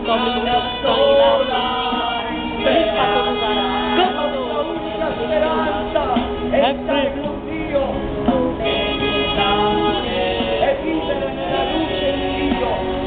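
A man singing a gospel song over instrumental backing music, the voice rising and falling in long sung phrases.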